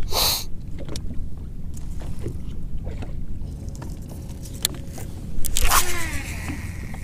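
A cast with a Quantum baitcasting reel about five and a half seconds in: a swish of the rod, then the spool whirring and falling in pitch as line pays out. Under it, steady wind and water noise and a few small clicks of the reel being handled.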